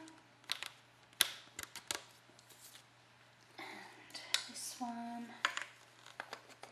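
Half-inch PVC pipes and elbow fittings being handled and fitted together: scattered light plastic clicks and knocks. A brief voice sound comes about five seconds in.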